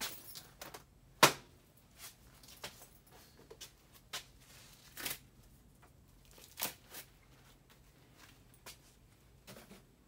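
Scattered clicks, taps and rustles of gloved hands working at an open heat-pump air-handler cabinet, with one sharp knock about a second in.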